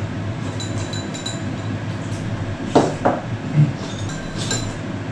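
Chopsticks and spoons clinking against ceramic bowls and dishes at a dinner table, a few light clinks with two louder knocks a little past the middle, over a steady low hum.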